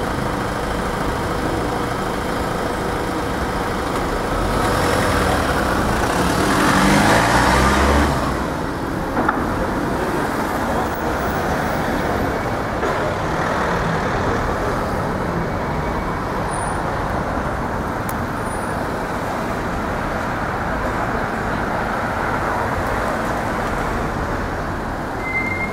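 Steady city street traffic noise. A louder vehicle passes about five to eight seconds in, its engine rising in pitch as it goes by.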